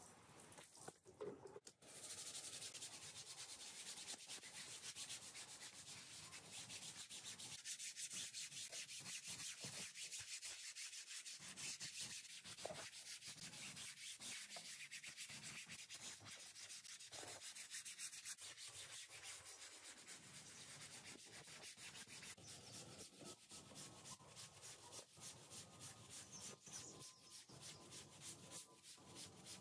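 Stiff-bristled brush scrubbing a wet, soap-foamed rug in fast, short back-and-forth strokes: a quiet, steady bristly scratching.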